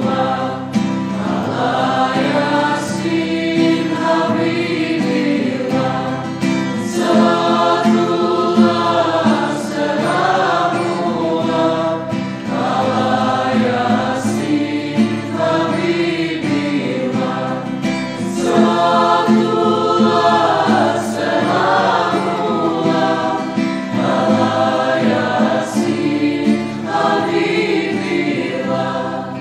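Mixed choir singing, the voices sustained and continuous; the singing dies away near the end.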